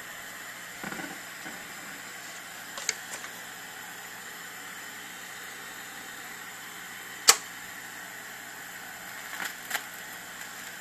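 Handling clicks and knocks on a Technics SL-BD1 turntable as a 45 rpm single is set on the spinning platter and the tonearm is moved over the record: a dull thud about a second in, one sharp click about seven seconds in, and a few smaller clicks near the end, over a steady hiss.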